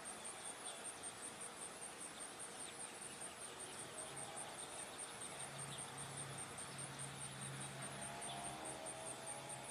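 Insect chirping outdoors: a steady, high-pitched pulsing of about four to five pulses a second. A faint low hum comes in about halfway through.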